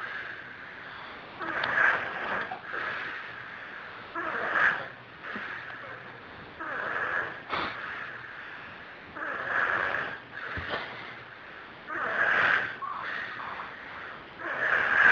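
A heavyset man snoring in his sleep, one noisy snoring breath about every two and a half seconds.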